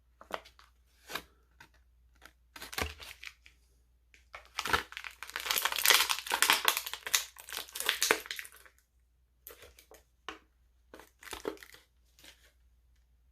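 Plastic and cardboard action-figure packaging being crinkled, crushed and torn open by hand. There are scattered crackles at first, a dense stretch of crinkling and tearing in the middle (the loudest part), then a few last crackles.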